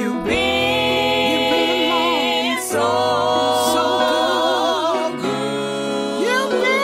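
Gospel music: singing voices hold long notes with vibrato over sustained bass and chords, and the chord changes about every two and a half seconds.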